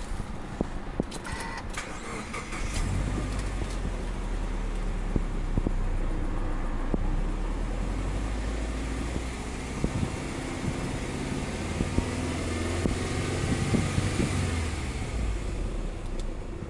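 Subaru Impreza WRX STI's turbocharged flat-four boxer engine starting after a brief crank about three seconds in, then idling steadily. Heard from inside the cabin.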